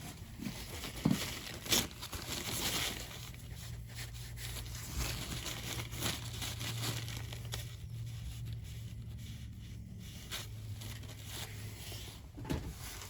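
Paper towels being torn off and crumpled, a rustling crinkle with scattered sharp handling clicks. A low steady hum sits underneath through the middle.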